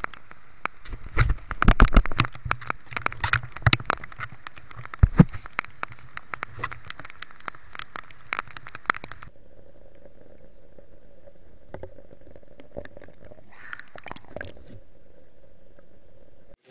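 Underwater sound picked up through a camera's waterproof housing during a night dive: irregular clicks, knocks and crackle from handling and movement for roughly the first nine seconds, then it turns muffled and quieter, with a faint steady hum and a couple of brief scuffs near the end.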